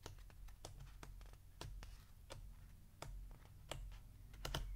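Faint, irregular soft clicks and rustles of a paper sketchbook's pages being leafed through by hand.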